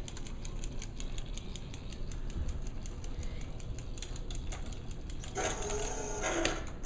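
Battery-powered toy helicopter with its rotor spinning, giving a rapid, even clicking of about six ticks a second. Near the end the clicking gives way to a brief pitched sound and a single sharp plastic knock.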